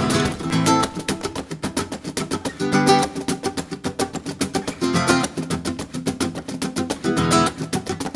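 Background music: acoustic guitar played with fast, steady picked notes and a fuller chord coming in every couple of seconds.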